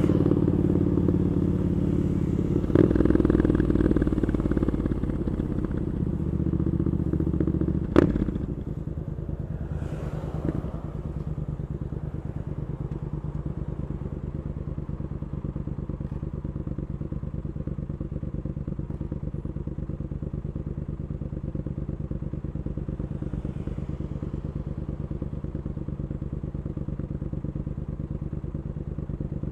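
Triumph Scrambler 900's parallel-twin engine with Arrow exhaust, running under way and swelling briefly a few seconds in. There is a single sharp clunk about eight seconds in, then the engine runs steady and even at a lower level.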